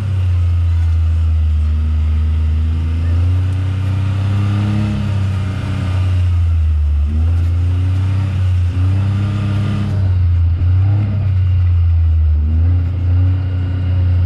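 Pickup truck engine running at low speed, its pitch rising and falling several times as the throttle is eased on and off, heard from the open truck bed.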